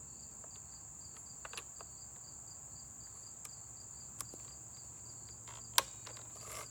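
Steady high-pitched chorus of insects, like crickets, with a faint regular pulsing chirp beneath it. A few sharp clicks and taps stand out, the loudest about six seconds in.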